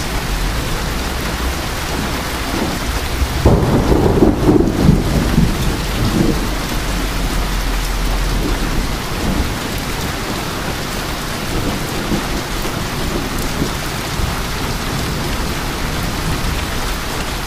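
Heavy thunderstorm rain falling steadily. A roll of thunder breaks in about three and a half seconds in, loudest for a second or two, then rumbles on and fades, with fainter rumbles later.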